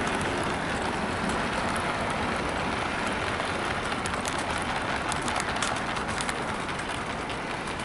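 OO gauge model freight train of ballast-loaded Seacow hopper wagons rolling along model railway track: a steady rattling hiss of small wheels on rail with scattered clicks over the rail joints, fading slightly near the end as the train moves away.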